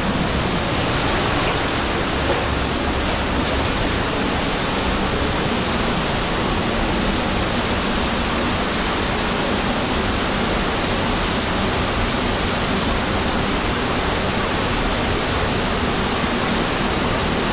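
Underground cave stream rushing steadily, an even noise of running water with no breaks.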